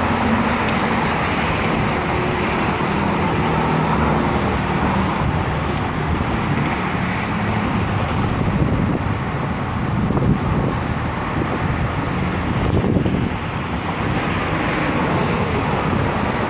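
Steady road traffic: cars and taxis driving past, a continuous mix of tyre and engine noise with small swells as individual cars go by.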